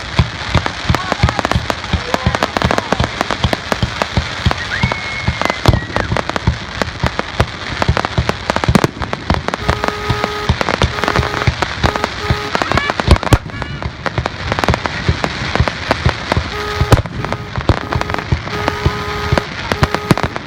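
Fireworks display: a dense run of cracks and bangs throughout, with a rising whistle about five seconds in. Short repeated toots at two pitches come in the second half.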